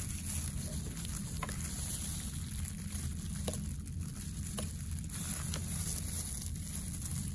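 Steady low room hum, with a few faint, sharp clicks from gloved hands and tools handling the dissected eye on the tray.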